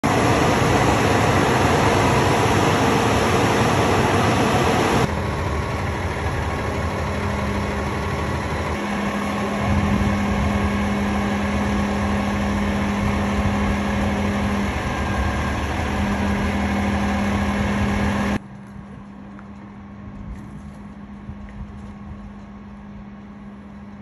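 Boom truck's engine running steadily with a constant low hum, loud at first, then abruptly dropping in level about five seconds in and again near the end.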